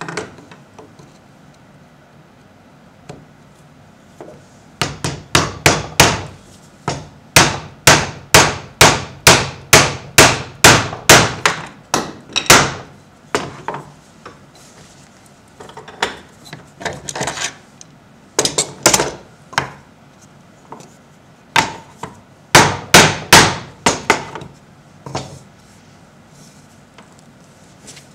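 Repeated sharp knocks of wood on wood, about three a second. One long run comes in the first half, and shorter runs of knocks follow later.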